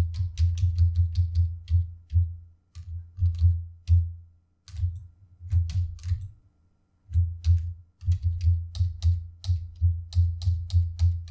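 Computer keyboard keys pressed rapidly over and over, the Ctrl+Z undo shortcut being hit repeatedly, each keystroke a sharp click with a low thud. The presses come about four to five a second in runs, with short breaks about two, four and a half, and seven seconds in.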